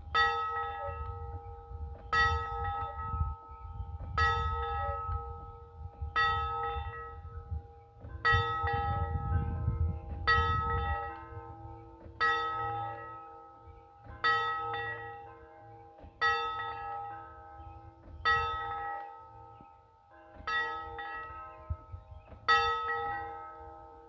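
Church and school-house tower bells tolling, one stroke about every two seconds, each stroke ringing on and fading before the next. A second, lower bell tone joins about eight seconds in.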